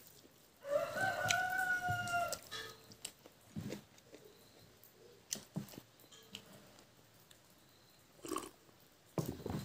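A rooster crows once, one long call of about two seconds that dips slightly at the end. Quiet eating and drinking sounds follow: soft chewing clicks, then swallows of water near the end.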